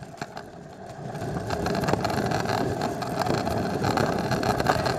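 Steady rushing noise of a scooter speeding down a paved hill: wind on the microphone and wheels rolling on asphalt, building up about a second in.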